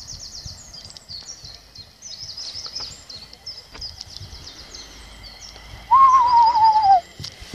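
Songbirds trilling. About six seconds in, a train horn sounds once for about a second: a loud, wavering single tone that sinks a little in pitch before it stops.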